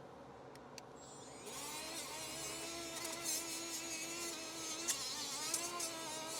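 A small motor starts buzzing about a second and a half in and runs on with a slightly wavering pitch, after a few faint clicks.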